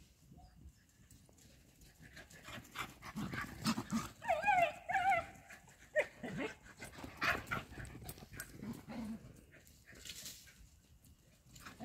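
Dogs at play in a chase: a wavering, high whine from one dog about four seconds in and a short yelp near six seconds, among quick thuds and scuffles of the running dogs.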